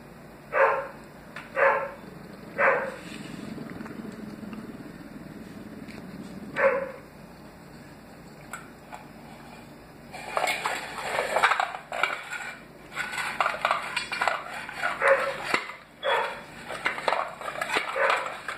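A small dog barks four times, short and sharp, in the first seven seconds. From about halfway on comes a busier run of clinks and clatter.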